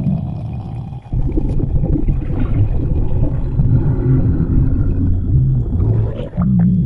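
Human stomach growling: a continuous low gurgling rumble with drawn-out pitched groans, briefly dropping away about a second in.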